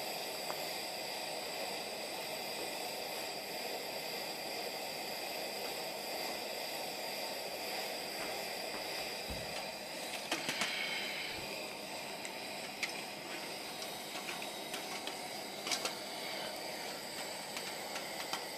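MSR Simmerlite pressurized stove, converted to burn denatured alcohol, running at full flame under a pot of water with a steady burner hiss. A few short light clicks come about halfway through and again later as a hand works at the pot lid.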